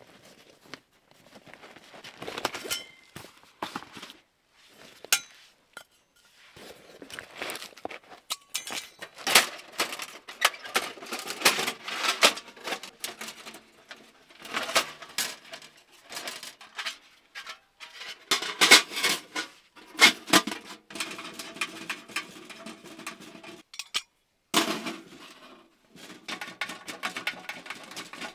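POMOLY sheet-steel tent wood stove being unpacked and assembled by hand: irregular metal clanks, clinks and rattles as its steel parts and pipe sections are handled and fitted into place, loudest in a few busy spells.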